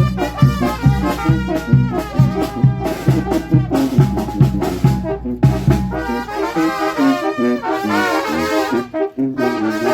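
Mexican brass band playing a ranchera: trumpets and trombones over a steady low oom-pah beat. The bass beat drops out about six seconds in, leaving the horns playing the melody with vibrato.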